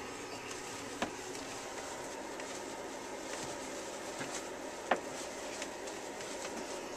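A cat pawing and clawing at a window curtain, with a few light clicks, the sharpest about five seconds in, over a steady room hum.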